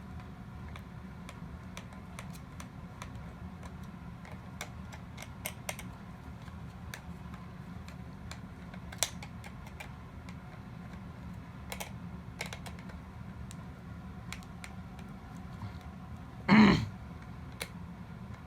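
Small scattered clicks and taps of plastic parts and tools being handled while a Mr. Robot toy is taken apart, over a steady low hum. A short, much louder noise breaks in near the end.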